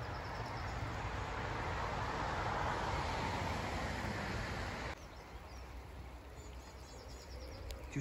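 Steady hiss of heavy rain falling through the gorse, stopping suddenly about five seconds in. Faint twittering of small songbirds is heard behind it at the start and again near the end.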